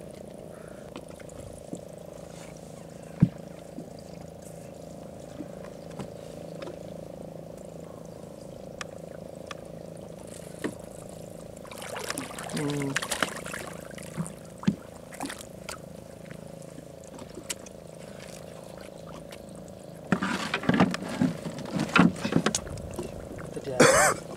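Large hooked fish thrashing and splashing at the water's surface beside a boat as it is hauled in on a handline: a short bout of splashing about halfway through, then louder, repeated splashes near the end. A steady low motor hum runs underneath.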